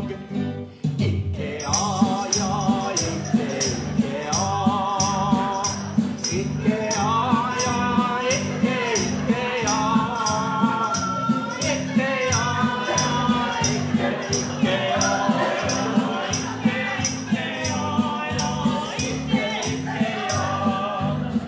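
A woman singing a slow song with a wide vibrato, accompanied by a strummed acoustic guitar. From about two seconds in, a tambourine keeps a steady beat of roughly two strokes a second.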